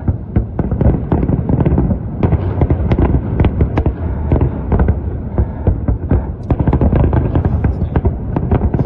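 Fireworks display: a dense, rapid barrage of bangs and crackles over a continuous low rumble of overlapping explosions.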